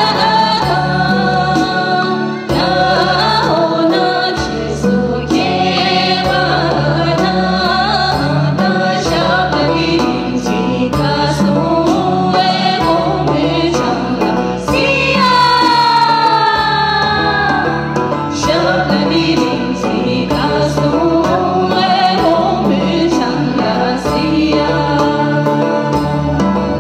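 A woman singing a song into a handheld microphone over amplified instrumental accompaniment with a steady beat, with one long note sliding down in pitch about midway.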